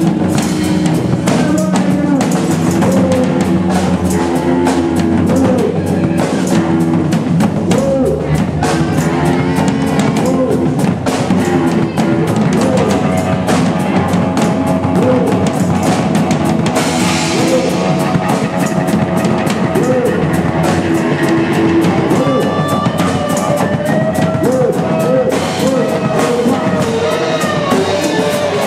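Loud, free-form improvised noise-rock jam: a drum kit and extra toms and cymbals pounding along with electric guitar, with sliding, wavering notes over the top.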